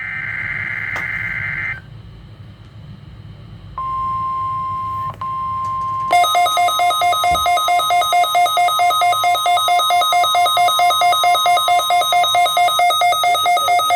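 NOAA Weather Radio Emergency Alert System signal: a buzzy SAME header data burst for nearly two seconds, then the steady 1050 Hz warning alarm tone starting about four seconds in. About six seconds in, the Midland weather radio receiver's own alert starts beeping loudly over it, about three pulses a second, the sign that the receiver has been triggered by the warning alarm. The signal opens a weekly test broadcast.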